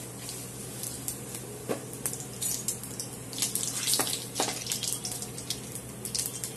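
Cumin seeds sizzling and crackling in hot oil in a kadhai, with frequent sharp pops over a steady hiss: the tempering (tadka) stage of the curry. From about midway a metal ladle stirs the seeds against the pan.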